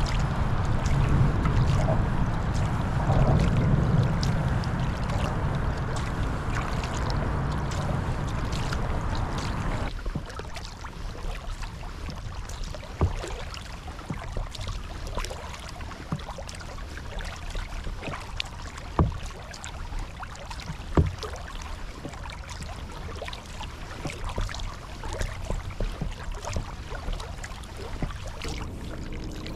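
Wooden Greenland paddle stroking through calm sea water from a kayak, with splashes and drips and a few sharper splashes. For about the first ten seconds a steady rushing noise lies over it, then stops abruptly.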